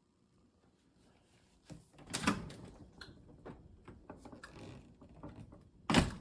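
Handling clatter: scattered clicks and knocks, a louder clattering thud about two seconds in and a sharp knock near the end.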